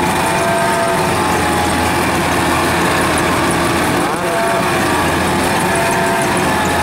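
Kubota combine harvester's engine running steadily as the machine works on its tracks to get out of deep mud.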